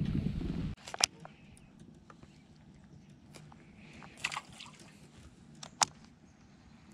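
A low rumble that stops abruptly under a second in, then faint water lapping against a fishing boat's hull with a few sharp clicks, about one, four and six seconds in.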